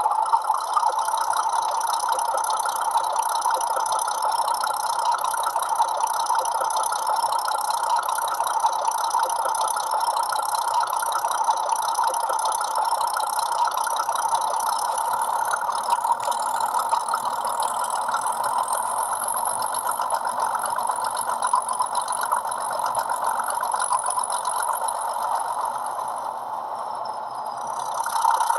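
Hornby HM7000 sound decoder playing its Class 31 diesel locomotive profile through a small model-loco speaker: a steady, tinny diesel engine run, with a faint rising whine about two-thirds of the way in and a brief dip in level near the end.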